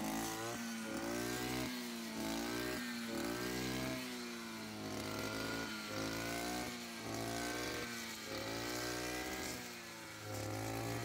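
Brush cutter (roçadeira) engine running while cutting tall weeds, its pitch rising and falling over and over, roughly once a second, as the blade bites into the growth.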